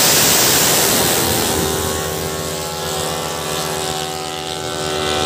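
Racing scooter engines running hard: a loud rush of engine noise at first, then from about a second and a half in, an engine drone held at a steady pitch.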